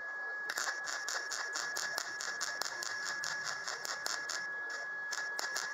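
MIG welder arc starting about half a second in and running a continuous bead on a steel patch panel: a rapid, dense crackle, with a steady high whine underneath.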